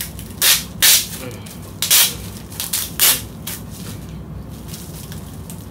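Packaging being handled while a phone box is opened: four short, loud rustles in the first three seconds, over a steady low hum.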